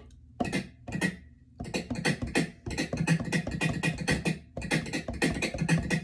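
Beatboxed double-snare samples set at several pitches, with a little reverb for a typewriter's ring, triggered from a pad controller in quick, uneven taps with short pauses to sound like typewriter keys being struck.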